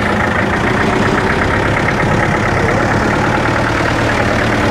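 A 4x4 jeep's engine idling steadily close by.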